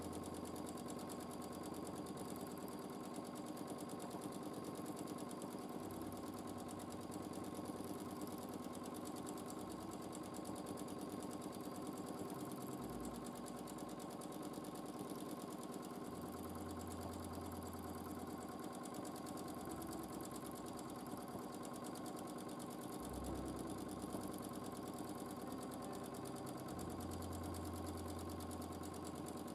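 Domestic sewing machine running steadily at high speed, the needle stitching rapidly through a quilt sandwich during free-motion quilting.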